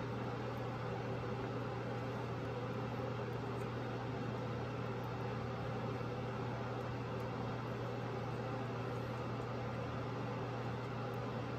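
A steady machine hum with an even hiss, unchanging throughout.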